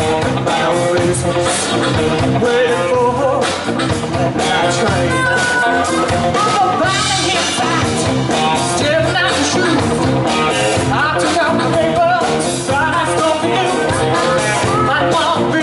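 Live blues band playing through a stage PA: electric guitars, bass and drums, with a singer and a harmonica played into a cupped microphone.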